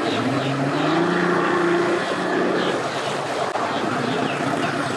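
A bass boat's 150 hp outboard motor revs up as it power-loads the boat onto its trailer, the pitch rising for about two seconds and then holding. The propeller churns the water.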